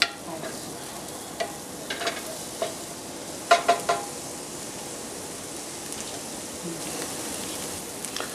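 Chopped onions sizzling as they brown in a frying pan. In the first few seconds a wooden spatula stirs them and taps against the pan several times, and after that the steady sizzle goes on alone.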